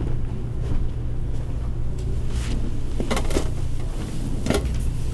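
A steady low hum with a handful of soft knocks and clicks scattered through it, like props or furniture being handled.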